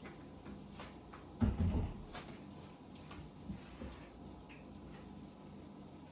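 Kitchen handling noises: one dull thump about a second and a half in, like a cupboard door or an object set down on the counter, with a few light clicks and knocks around it.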